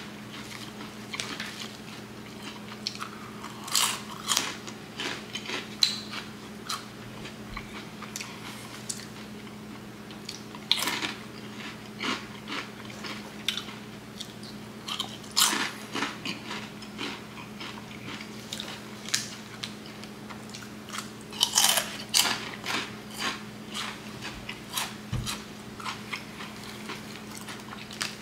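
Flaming Hot Cheetos being bitten and chewed close to the microphone: a sharp crunch every few seconds as each piece is bitten, followed by a run of smaller chewing crunches.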